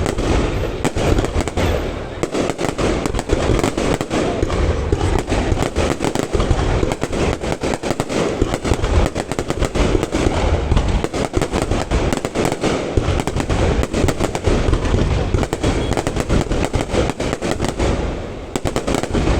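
Fireworks display in a continuous barrage, many sharp bangs a second over deep booms, without a break.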